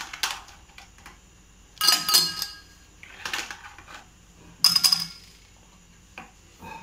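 Ice cubes dropped into tall drinking tumblers, clinking against the glass and each other in short clusters, about three of them a second or so apart.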